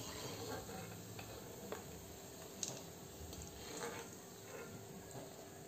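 Urad dal pakoras frying in hot oil in a kadai: a soft, steady sizzle with scattered crackles and ticks, the sharpest about two and a half seconds in.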